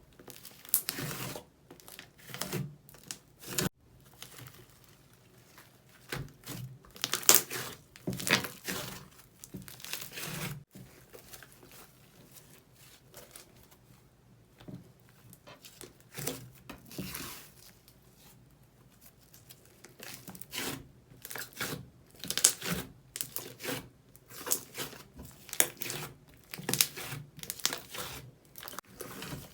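Slime being squeezed and stretched by hand, crackling and popping in irregular clusters with short pauses between them.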